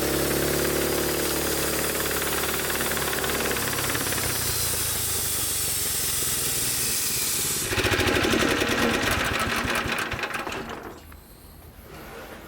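Homemade band sawmill running, its motor and band blade making a steady hissing rush. About eight seconds in, it turns to a louder, fast rattle, then dies down sharply near the end.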